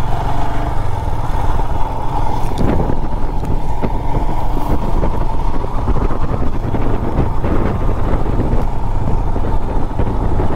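Motorcycle running steadily at road speed: a continuous engine and rushing road noise with no breaks.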